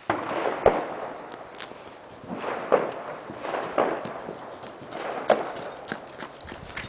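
Scattered firecracker bangs: four sharp bangs a second or two apart, with hissing and faint crackling between.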